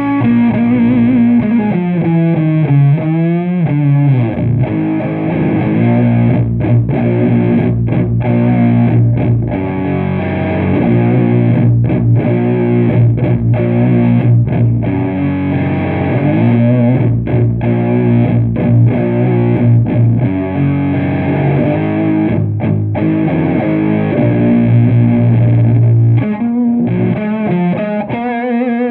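Distorted electric guitar with humbuckers through a PPPC Dream the Desert booster pedal into a Matamp GT120 valve amp and a 4x12 cabinet with Eminence speakers: slow, heavy stoner riffing on sustained low chords and notes, cut by brief stops. Sliding notes come in the first few seconds and again near the end.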